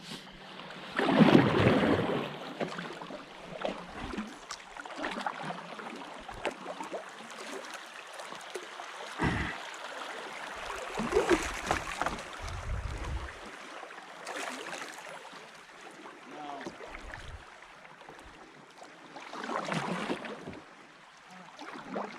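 Water splashing and lapping around a kayak on a moving river, with several louder splashes and a few light knocks against the boat.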